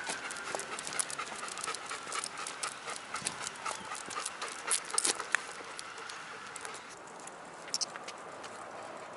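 Golden retrievers' paws and claws tapping quickly and irregularly on asphalt as they walk on lead. The tapping thins out and stops about seven seconds in as the dogs halt.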